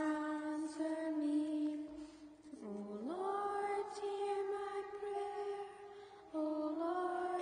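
Voices singing a slow, chant-like refrain in long held notes. One note scoops upward about three seconds in, and a new phrase begins near the end.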